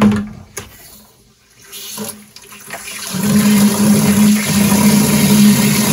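Water gushing from an opened drain valve into a plastic five-gallon bucket as the house's water lines are drained. The flow builds about three seconds in to a loud, steady rush with a low hum.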